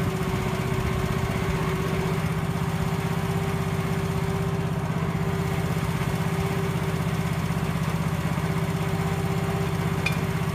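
Engine of a hydraulic post-driver power pack running steadily at idle, with an even, fast pulse.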